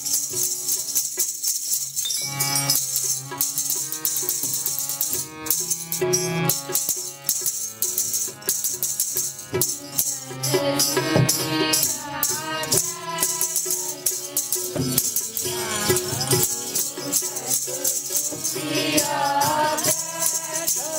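Devotional kirtan music: singing over held instrument tones, with a continuous jingling rattle of hand percussion.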